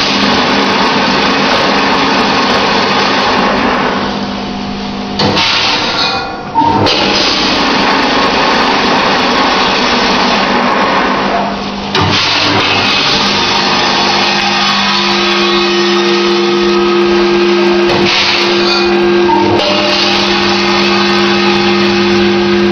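Salt weighing-and-filling packing machine running, a steady mechanical hum and hiss that dips briefly a few times.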